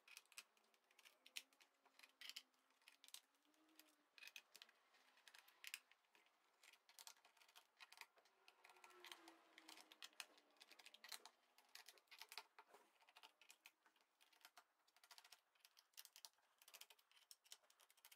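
Faint, irregular small clicks and taps of a screwdriver and fingers on the plastic bottom cover of an Acer Aspire E15 laptop as its cover screws are taken out.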